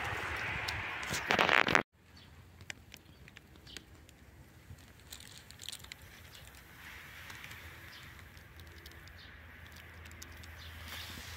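Footsteps crunching through dry fallen leaves and brushing past twigs, cutting off suddenly about two seconds in. After that come only faint scattered crackles of leaf litter being handled.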